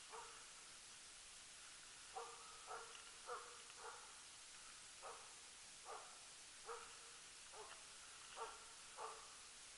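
Faint, steady barking of a Jämthund (Swedish elkhound) baying a moose: one bark, a short pause, then about ten barks at an even pace of a little more than one a second. This is the rhythmic bay bark (ståndskall) of a dog holding a moose at bay. The barks sit over a steady hiss.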